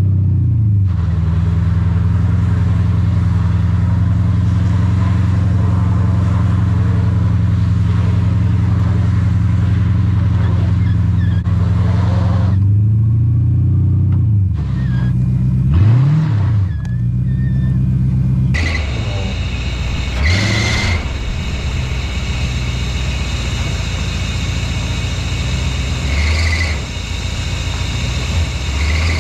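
Mercedes 560SEC V8 engine running steadily. Around the middle its speed swings up and down briefly a couple of times, and in the second half a steady hiss joins the engine note.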